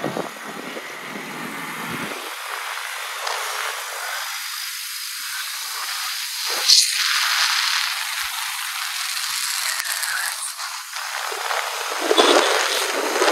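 Rushing wind and road noise from a motorcycle riding at speed, a thin steady hiss with no clear engine note. A short louder burst comes about seven seconds in, and the noise grows louder near the end.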